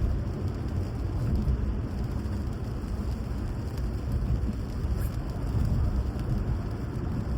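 Steady rain with a continuous low rumble underneath.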